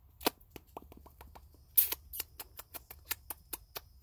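Puppies' claws clicking and tapping on wooden deck boards: scattered sharp taps, then a quicker run of about five a second from a couple of seconds in, the loudest one a little under two seconds in.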